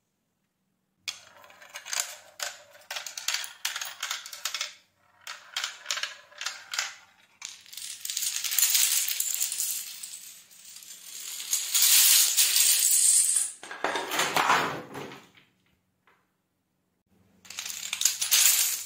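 Wooden dominoes toppling in a chain across a tile floor: rapid clicking starts about a second in and builds into dense clattering as stacked towers of dominoes collapse, with a heavier burst of clatter after about fourteen seconds. It stops briefly, then a last burst of clatter comes near the end.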